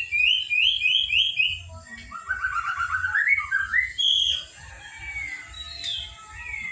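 Young white-rumped shama, at the juvenile moulting stage, singing: a quick series of about five rising whistled notes, then about two seconds in a faster run of short notes climbing in pitch, followed by a few scattered single whistles.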